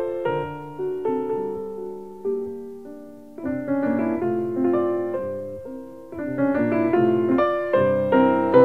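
Solo piano music of separate struck notes that ring and fade. It thins out about two seconds in and fills out again after about three and a half seconds.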